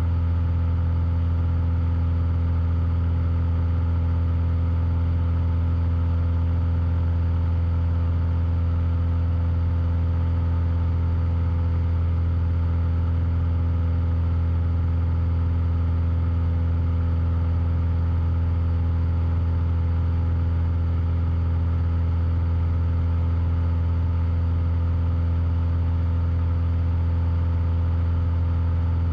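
Cessna 172's piston engine and propeller droning steadily in flight, holding one even pitch with a strong low hum.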